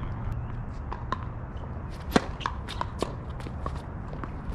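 Footsteps and scuffs of tennis shoes on a hard court, with scattered short clicks and one sharper knock about two seconds in. A low wind rumble on the microphone runs underneath.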